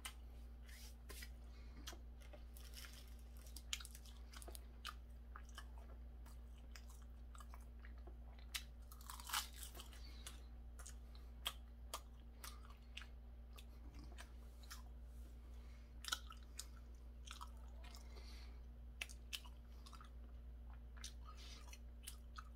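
A person chewing food close to the microphone: irregular soft wet clicks and crunches from the mouth, a little louder a few times, over a faint steady low hum.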